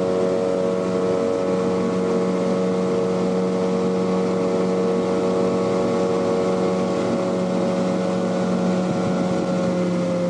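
Boat engine running at a steady speed: a constant, even drone.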